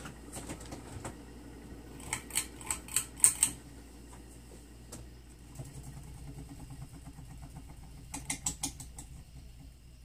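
Hampton Bay Quick Connect ceiling fan running with a steady low hum. Two quick runs of sharp clicks cut in, the first about two seconds in and the second near the end.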